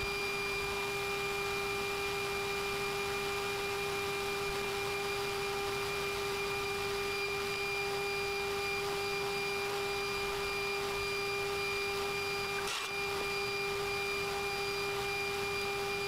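CNC mill's RATTM 4.5 kW BT30 spindle running at high speed with a steady whine, over the hiss of a small end mill cutting metal. The sound breaks off for a moment about 13 seconds in.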